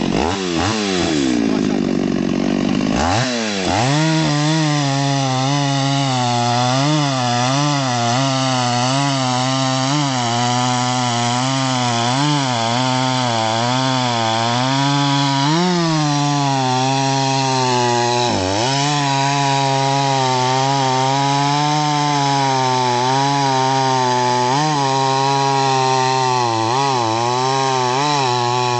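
Solo by AL-KO 652 two-stroke petrol chainsaw cutting through a log under load. Its engine pitch falls steeply in the first couple of seconds and picks up again about three seconds in, then holds at cutting speed with a constant wavering as the chain bites, dipping briefly twice past the middle.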